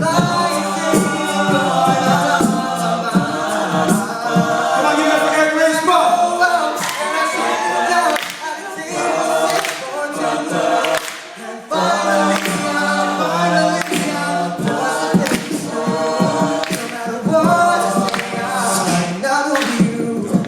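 An a cappella vocal group singing in close harmony, with a held low bass line under several voices and short, sharp percussive hits throughout. There is a brief dip about halfway through.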